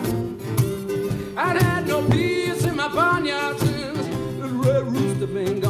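Acoustic blues jam: acoustic guitars strumming over a cajon beat. From about a second and a half in, a lead line of bent, wavering notes plays over them, a harmonica played into a cupped hand-held microphone.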